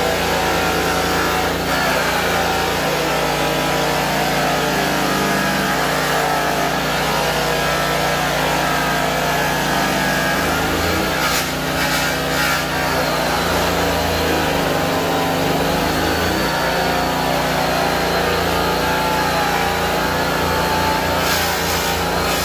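High-speed rotary sander-polisher running continuously against a stainless steel tank, a steady machine whine whose pitch wavers slightly as the pad is worked over the metal.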